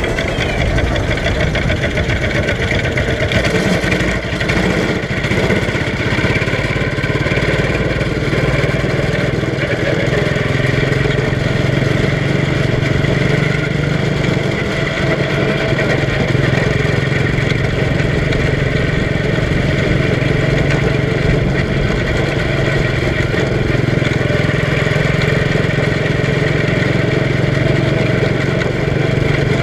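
Quarter midget race car's small single-cylinder engine running steadily, heard from on board the car as it drives around the track.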